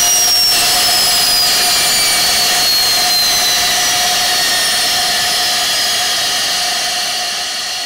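TEI TS1400 turboshaft engine spooling down after shutdown: a high turbine whine falls steadily in pitch over a steady rushing exhaust noise, easing off slightly near the end.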